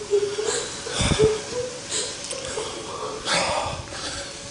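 A girl crying in fright, with a wavering wail and gasping, wheezy sobs.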